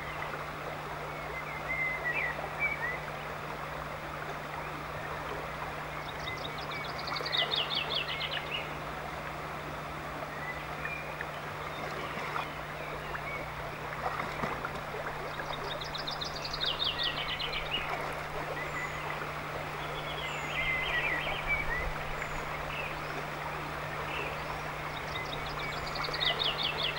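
River water rushing steadily, with a songbird singing the same short descending trilled phrase three times, about ten seconds apart, and a few scattered chirps.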